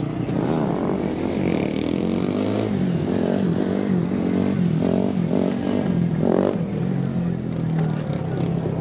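Motorcycle engine revving up and down over and over, its pitch rising and falling with each blip of the throttle.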